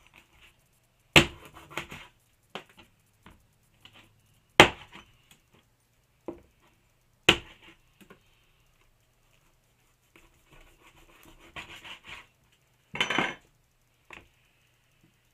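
A meat cleaver chopping through a gray squirrel carcass onto a plastic cutting board: three sharp chops a few seconds apart, with small knocks between. Near the end come rustling and a short rasping burst as the tough hide is pulled off the squirrel.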